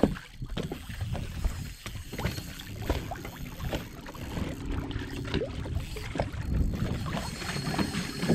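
Small boat on the water: wind on the microphone and water sounds against the hull, with scattered knocks and clicks throughout.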